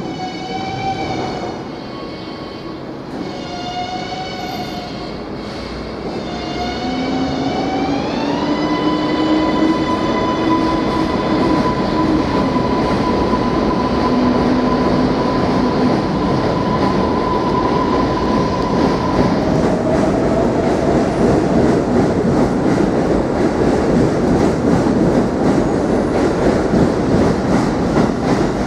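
R143 subway train's propulsion whining as it creeps along, the pitch wobbling up and down at first, then rising about eight seconds in to a steady high tone held for some ten seconds. The rumble and clatter of wheels on rail grows louder as it moves.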